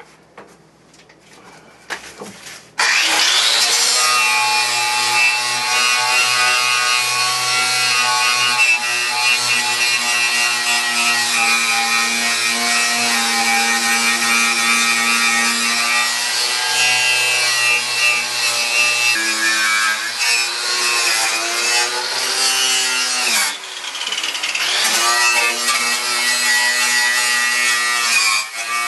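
Electric angle grinder with a wire brush stripping paint off steel body panel to expose the spot welds: it starts about three seconds in and runs with a steady high whine over a grinding hiss, briefly slowing and winding back up near the end.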